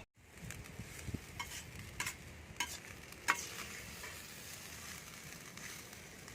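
Fried rice with baby corn sizzling in a frying pan as it is stirred, with several sharp taps of the spatula against the pan in the first few seconds.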